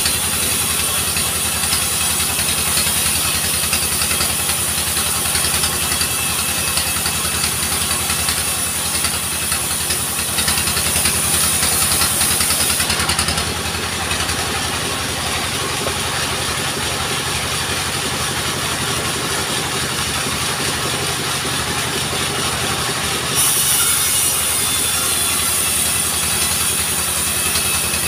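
Small log sawmill running steadily on its engine, with the blade cutting through a log and making a high hiss. About halfway through, the cutting stops while the engine keeps running, and it starts again a few seconds before the end.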